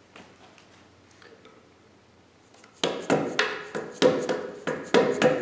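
Hammer blows on the steel of a Brinly plow, each strike ringing metallically, about three a second, starting roughly three seconds in after a few faint handling clicks.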